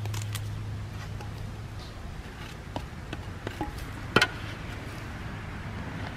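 Epoxy spreader scraping and tapping against sheet metal while mixing and spreading JB Weld: scattered light clicks, with one sharper knock about four seconds in, over a steady low hum.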